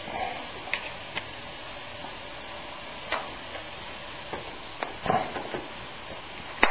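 Scattered light clicks and taps of a glass seasoning jar being shaken and tapped out over a skillet of noodles, with one sharper click just before the end.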